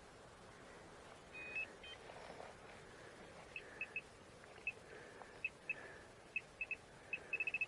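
Metal detector giving short, high beeps while searching for a coin target in dug soil: scattered single beeps that come faster, ending in a rapid run of beeps as it closes in on the target.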